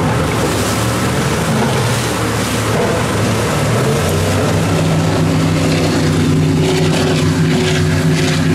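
Offshore powerboat engine running at high speed, a steady loud drone whose pitch steps up about three to four seconds in.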